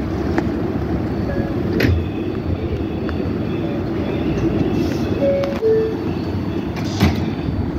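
R142A subway train standing at the platform with a steady rumble and hum. About five seconds in, its two-tone descending door chime sounds, warning that the doors are closing. A sharp knock near the end is the doors shutting.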